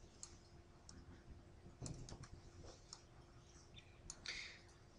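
A few faint, scattered computer mouse clicks over near-silent room tone with a faint steady hum.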